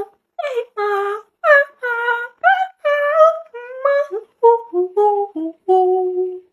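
A woman imitating a horse's neigh with her voice: a string of short, high, wavering syllables that slide up and down in pitch, ending on a longer held note.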